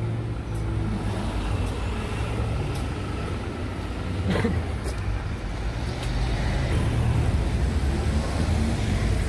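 Street traffic: cars running by with a steady low rumble, and one short click about four and a half seconds in.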